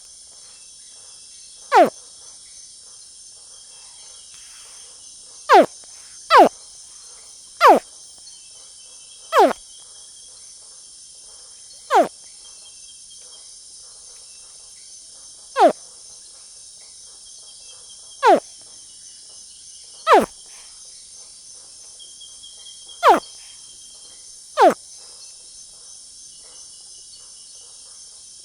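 Young crocodile giving short, sharply falling chirps, eleven of them at irregular intervals of one to four seconds, over a steady high chorus of crickets.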